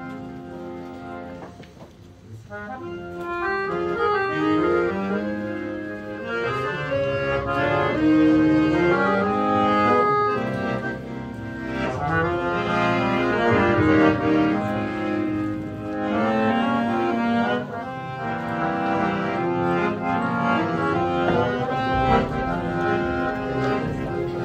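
Instrumental song intro with an accordion playing the melody over a full accompaniment, starting softly and growing fuller after about three seconds.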